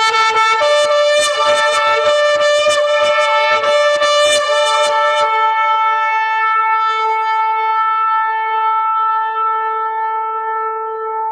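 Shofar (ram's horn) blown: about five seconds of quick pulsing blasts, roughly three a second, over a sustained note, then one long, steady, unbroken blast.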